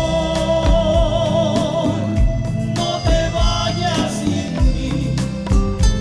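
A romantic ballad with hand-played bongos over a backing track, with a regular beat throughout. A long note wavers with vibrato for about the first three seconds and returns briefly near the four-second mark.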